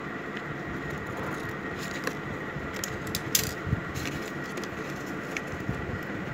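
Paper handling: green origami paper being cut with scissors and folded by hand, with light crackles and a few sharp clicks, the loudest about three seconds in as the metal scissors are set down on the tile floor. A steady hiss with a faint high tone runs underneath.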